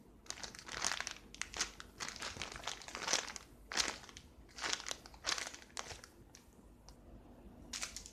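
Clear plastic packaging bag of a squishy toy crinkling irregularly as it is handled, a rapid series of sharp crackles that thins out near the end.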